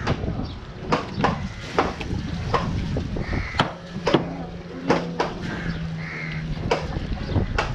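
Heavy cleaver chopping into fish flesh and bone on a wooden block, a string of sharp, irregular knocks. Crows caw twice in the background.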